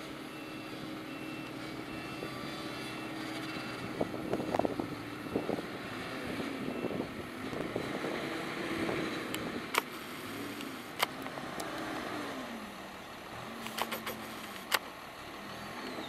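A Claas Scorpion telehandler's diesel engine runs and revs up and down as it lifts and carries a load of straw bales. A reversing alarm beeps steadily through the first half, and several sharp clunks come from about four seconds in onward, the last cluster near the end.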